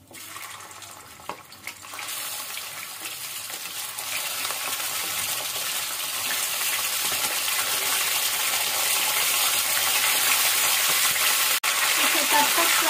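Washed raw chicken pieces sizzling as they are dropped into hot oil in an aluminium kadhai, the sizzle growing steadily louder as more pieces go in. The sound cuts out for an instant near the end.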